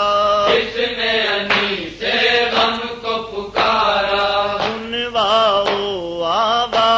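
Noha lament chanted in long held vocal notes whose pitch wavers and bends, broken by short pauses for breath.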